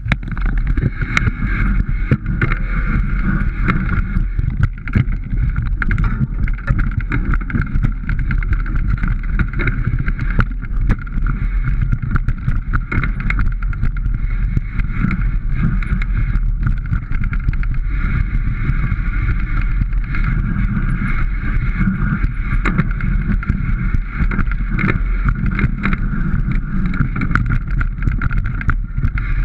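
A bike riding fast down a rough dirt trail: a steady rumble of tyres and frame with many short knocks and rattles from bumps and roots, mixed with wind on the action camera's microphone.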